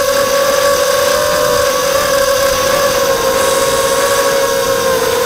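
Brushless motors and propellers of a Morphite 180 FPV quadcopter whining steadily in flight, the pitch holding nearly level with slight wavers as the throttle shifts, heard close up from the onboard camera with a hiss of airflow.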